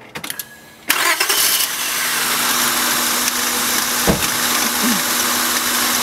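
Car engine starting, catching about a second in and then running steadily. It is running on a bad ignition coil that gives only a weak spark on one cylinder, the cause of its misfire.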